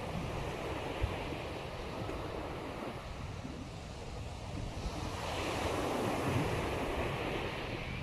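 Small sea waves breaking and washing up a beach, one swelling louder about five seconds in. Wind rumbles on the microphone.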